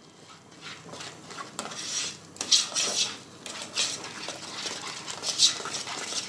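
A utensil stirring thick chocolate cake batter in a saucepan, making irregular scraping strokes against the pan.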